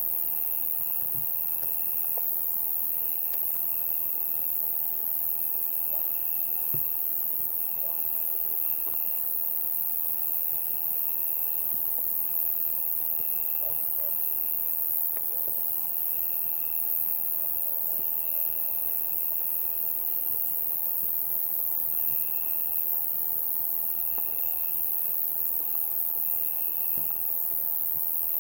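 Summer night insect chorus with crickets: a dense, steady high-pitched shrilling, and a lower trill that starts and stops every second or two.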